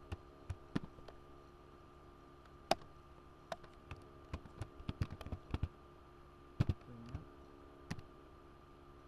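Computer keyboard being typed on: single keystroke clicks at irregular intervals, with a quick flurry of keystrokes around the middle.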